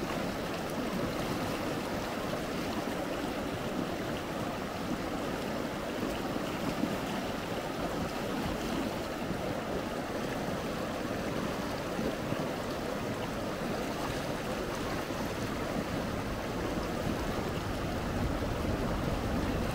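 The Gallatin River flowing, a steady rush of moving water with no break or change.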